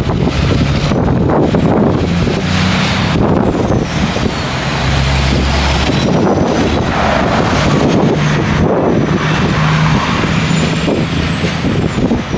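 Peterbilt 389 semi-truck's diesel engine under load, running loud, its note stepping up and down in pitch a few times.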